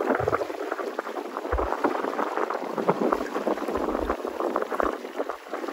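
Choppy sea water splashing and lapping in a steady crackle, with wind buffeting the microphone in several short low thumps.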